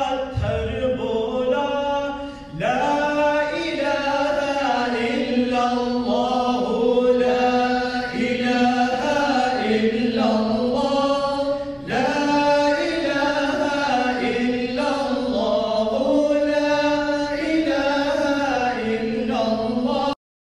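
Islamic devotional chanting in long, held melodic phrases, with a couple of brief pauses for breath. It cuts off abruptly near the end.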